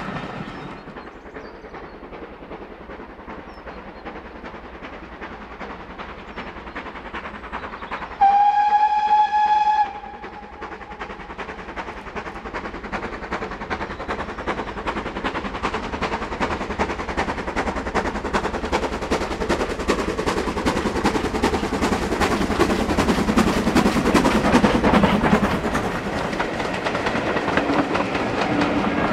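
Steam locomotive whistle sounding once, one steady note for about a second and a half, then a train approaching and running past, its noise building to a peak and easing near the end.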